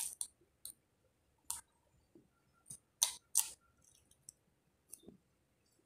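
Crisp clicks and crunches of raw bitter gourd (ampalaya) being chewed, coming irregularly, the loudest pair about three seconds in.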